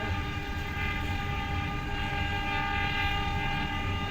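Horn of a CC 203 diesel-electric locomotive sounding a long, steady blast, the semboyan 35 warning signal given at a level crossing, over the low rumble of the passing locomotive's engine. The horn starts abruptly and holds, dipping briefly near the end.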